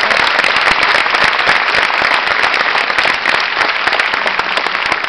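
Theatre audience applauding, a dense mass of clapping that begins to ease off near the end.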